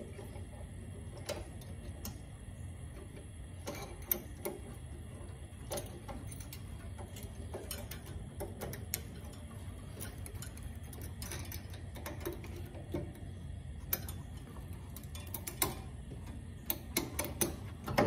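Irregular small metallic clicks and taps as a snowthrower drive cable's looped end and steel spring hook are worked by hand onto their bracket, the clicks coming faster near the end, over a steady low hum.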